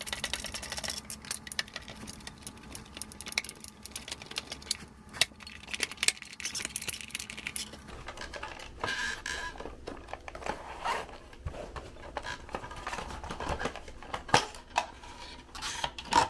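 Small clicks, ticks and scrapes of hand disassembly: a Torx screwdriver backing out screws in the vacuum's plastic housing, then the plastic HEPA filter and cord-reel assembly rattling as it is worked free of the shell.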